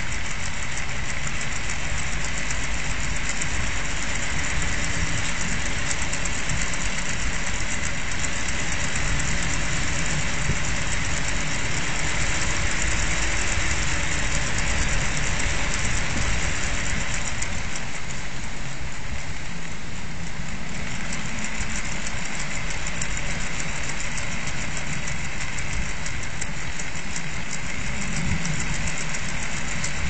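Typhoon-force wind rushing steadily at a window, with the whir of a wind-powered toy's propeller and pedalling mechanism spinning in the gusts; a faint high whine eases for a few seconds a little past halfway, then returns.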